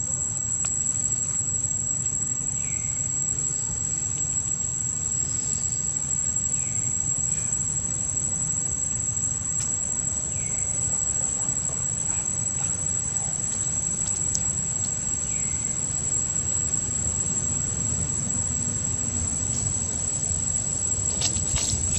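Steady high-pitched drone of insects, with a low rumble underneath and a few faint short chirps spaced several seconds apart.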